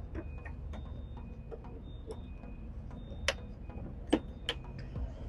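Scattered light clicks and taps from a toolbox's latches being worked by one hand, the sharpest a little past the middle. The box is tightly sealed and hard to open.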